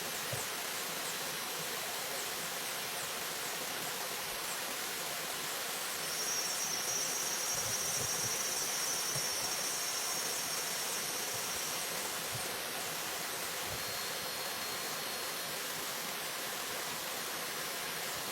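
Steady rush of flowing water. About six seconds in, an insect starts a high-pitched buzzing trill that lasts about six seconds, and a fainter high trill follows briefly near the end.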